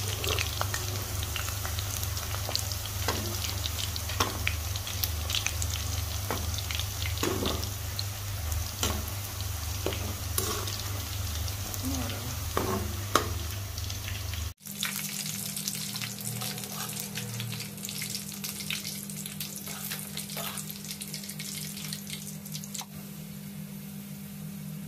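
Scored chicken sausages frying in hot oil in a pan: a steady sizzle with scattered crackles and pops as they are stirred and turned with a metal utensil. The sound cuts out for an instant about halfway through, then the sizzling carries on a little quieter.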